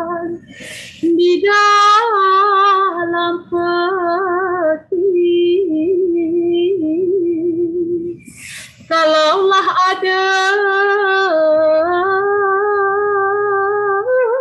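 A woman singing a Malay gurindam solo in long, ornamented held notes that waver in pitch. She takes an audible breath about half a second in and again about eight and a half seconds in. A softer, thinner passage comes in the middle.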